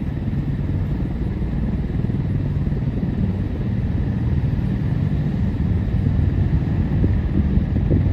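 AH-64 Apache helicopter running, a steady low rumble with rapid rotor chop, getting slightly louder toward the end.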